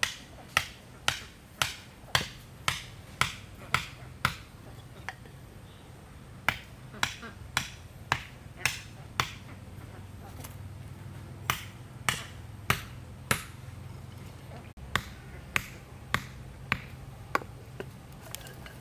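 A series of sharp knocks or strikes, about two a second, coming in four runs with short pauses between them, over a faint low hum.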